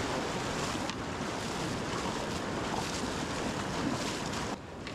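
Surf waves breaking, with wind buffeting the microphone: a steady rush that drops off suddenly near the end.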